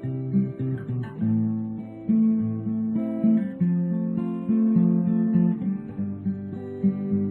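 Background music: an acoustic guitar playing a run of plucked and strummed chords.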